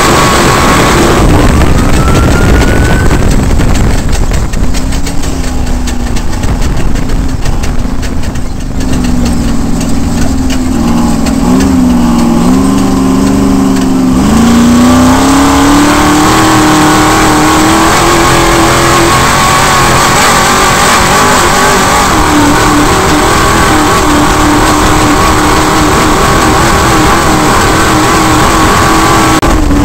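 Off-road race vehicle's engine heard loud from inside the cockpit while driving, over heavy road and wind noise. Its pitch dips lower for several seconds, then climbs back and holds steady.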